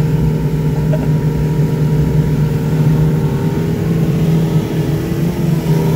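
Outboard motor of a small aluminium boat running at a steady cruising speed: a constant hum over a rough low rumble.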